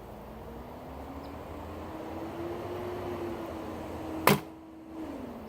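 A Border Bows Covert Hunter bow with Hex7 limbs is shot once about four seconds in, with bare strings and no silencers, giving a single sharp string slap as it releases a heavy 585-grain arrow. Under it runs a low engine hum that slowly rises and falls, from a garbage truck a couple of blocks away.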